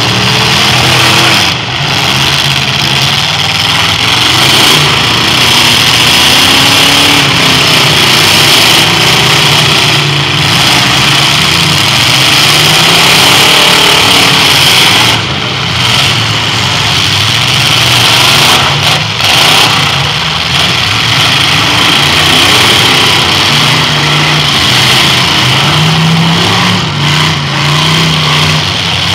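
Demolition derby cars' engines running hard and revving, several at once, their pitch rising and falling as the drivers work the throttle.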